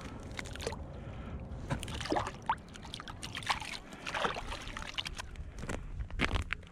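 Water sloshing, splashing and dripping at an ice-fishing hole in irregular small bursts, over a steady low wind rumble.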